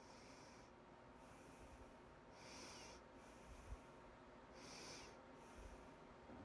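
A person breathing in and out close to the microphone, a soft breath about every second with the louder ones every couple of seconds, and a single brief low thump a little past the middle.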